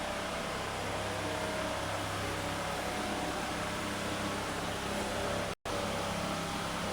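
Steady mechanical whir with a low hum, cut off for an instant about five and a half seconds in.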